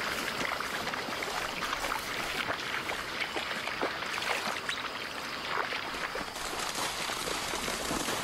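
Lions and their cubs walking through tall dry grass: a steady rustle with many light crackles.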